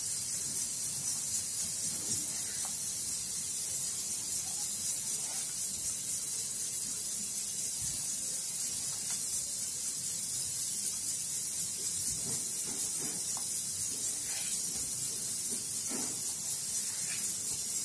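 A steady high hiss throughout. Faint, occasional scrapes come from a knife cutting through a steamed spinach and gram-flour cake in a steel plate.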